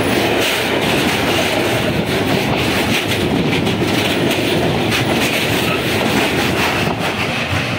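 Container flat wagons of a freight train rolling past at close range: a steady loud clatter and rumble of steel wheels on the rails, with repeated clicks. The noise begins to ease off near the end as the last wagons go by.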